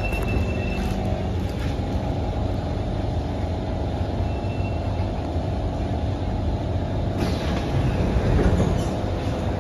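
C151 metro train heard from inside the car as it slows into a station: a steady deep rumble of running gear with a few steady tones over it, and a rush of hiss starting about seven seconds in.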